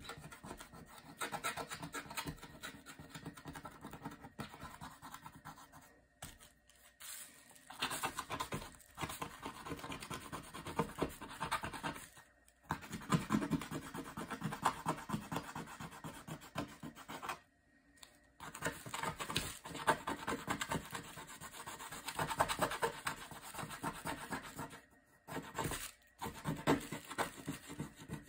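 Fingernails scratching and scraping a dried blue coating off a printed board in quick, continuous strokes, stopping briefly a few times.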